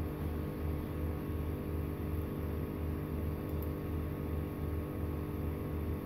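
A steady low hum that throbs in even pulses several times a second, with fainter steady tones above it.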